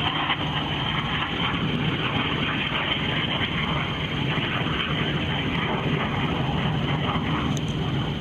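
Steady rushing noise aboard a sailboat under way, wind and water on the microphone, with a low, even hum underneath.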